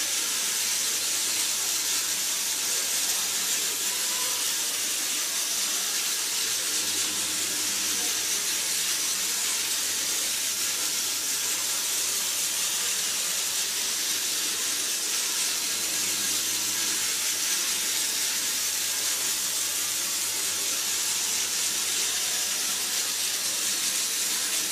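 Battery-powered Tomy Trackmaster / Plarail toy train running, its small electric motor and gearbox giving a steady, even whir with no breaks.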